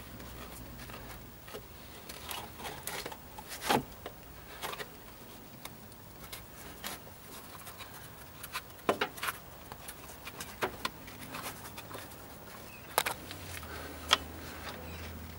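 Scattered light clicks, taps and rustles of a gloved hand fitting a new ribbed auxiliary drive belt onto the engine's pulleys.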